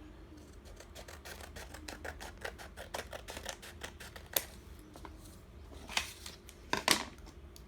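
Paper knife cutting through a folded sheet of paper: a run of small quick scratching clicks, with a few sharper clicks past the middle and near the end.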